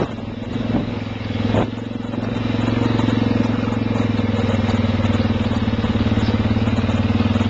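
ATV engine idling steadily, with a couple of sharp knocks in the first two seconds.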